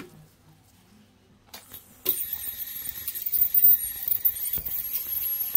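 Ultrasonic dental scaler at work on a dog's tartar-covered teeth. After a near-quiet start it comes in about two seconds in: a high-pitched whine with uneven scraping as the tip works the calculus off.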